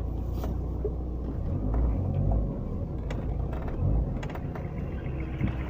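Steady low rumble of a vehicle travelling on a dirt road, swelling louder twice, with a few scattered knocks and rattles.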